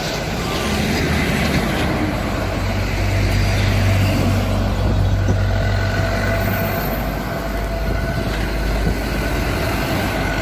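Mercedes-Benz truck's diesel engine running as the truck pulls away past the listener. A deep engine hum swells for a few seconds in the middle, then eases.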